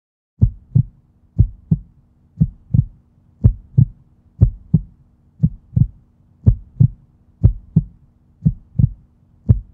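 Heartbeat-like sound effect: a pair of low thumps, lub-dub, repeating about once a second over a faint steady low hum.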